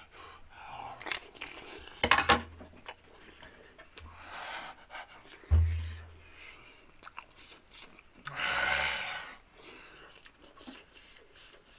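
A man chewing a scalding-hot dumpling, with open-mouthed huffs of breath around four and eight seconds in as he tries to cool his mouth. There is a short low thump about five and a half seconds in.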